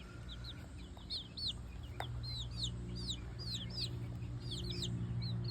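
Young chickens peeping: a steady run of short, high chirps, several a second. A low steady hum sits underneath, with a single click about two seconds in.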